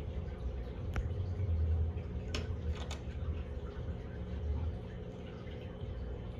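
Saltwater aquarium equipment humming steadily, with a faint trickle of water. A sharp click comes about a second in, and a few more come close together between two and a half and three seconds in.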